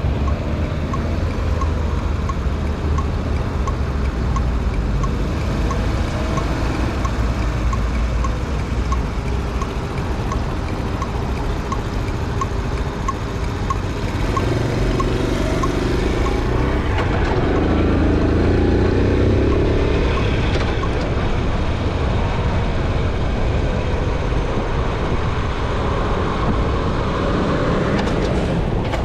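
Honda Super Cub 90's single-cylinder four-stroke engine running while the bike is ridden, with wind rushing over the microphone. The engine note rises about halfway through as the bike speeds up and is loudest shortly after. A light ticking comes about twice a second during the first half.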